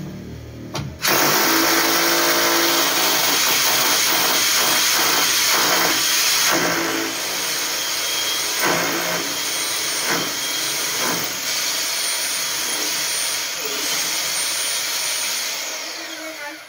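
Cordless power drill boring into the concrete moulding and wall. It runs under load, starting abruptly about a second in and cutting off just before the end; the hole is for a steel pin that anchors the precast moulding.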